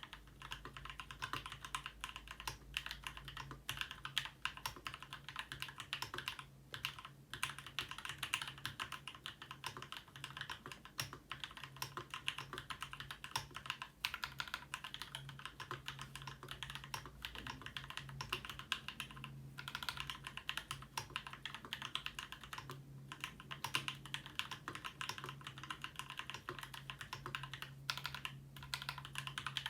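Continuous typing on a Ramaworks M60-A custom mechanical keyboard with an internal dampener, fitted with lubed and filmed Gateron Black Ink linear switches, screw-in stabilizers and GMK doubleshot keycaps. The keystrokes come fast and steady, with a few brief pauses.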